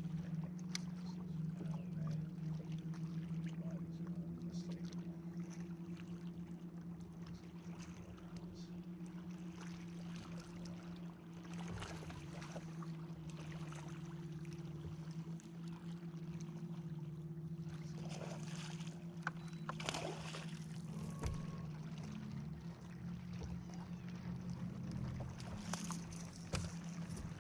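Electric trolling motor on a bass boat humming steadily, with a few brief knocks and splashes of fishing activity around the middle and near the end.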